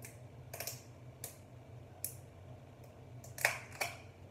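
Irregular sharp clicks and light taps of plastic containers being handled and opened, about half a dozen, with the loudest pair about three and a half seconds in.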